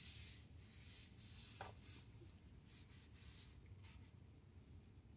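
Faint rubbing strokes of a cloth rag wiping oily metal on the truck's underside, a few soft swipes in the first two seconds, then near silence.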